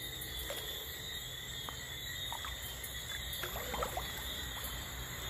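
Water sloshing and trickling around someone moving through a river, over a steady high chirring of night insects, with a few faint clicks.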